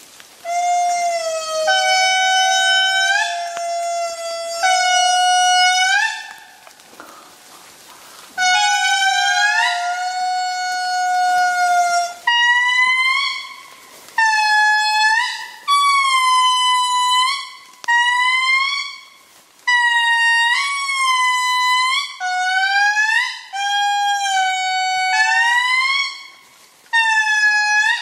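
Indri song: a series of loud, long, horn-like calls, each held one to two seconds and ending in a slide of pitch. About halfway through, the calls become shorter and higher.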